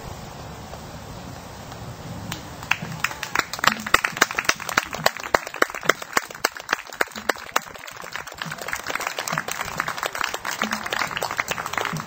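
Hand clapping: scattered sharp claps, a few a second, then a denser patter of applause near the end.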